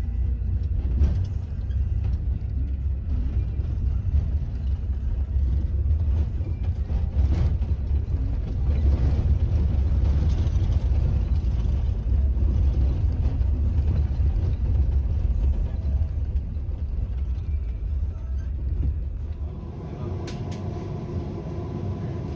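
Steady low rumble of a city tram or bus heard from inside the moving vehicle. Near the end the rumble eases and a steady hum comes in, with a single sharp click.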